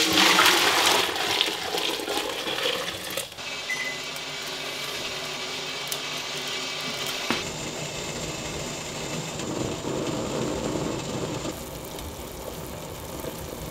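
Maple sap making a rushing, watery liquid noise while it is boiled down and handled, in short pieces that change abruptly about three, seven and eleven seconds in.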